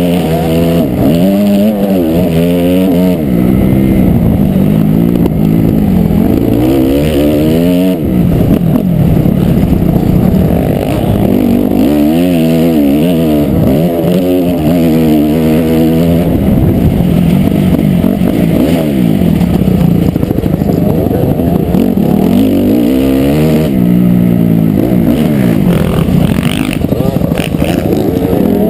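2008 Honda CRF250R's single-cylinder four-stroke engine under hard riding, its pitch climbing and dropping again and again as the throttle is opened and shut between corners, heard close up from a helmet-mounted camera.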